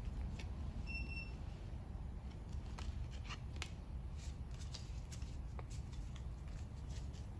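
Pokémon trading cards from a freshly opened booster pack handled in the hands, giving faint scattered clicks and rustles over a low steady hum. A short faint high tone sounds about a second in.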